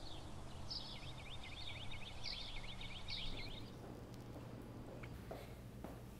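A songbird singing a rapid run of repeated chirps, about five or six notes a second, that stops a little past halfway, over a faint steady low hum.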